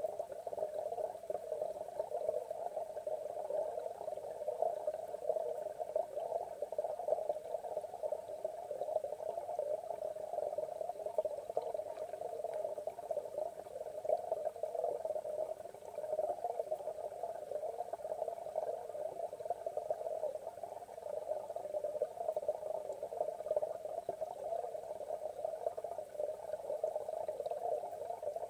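Steady, muffled watery bubbling heard underwater in a pond, a continuous churning noise with no breaks.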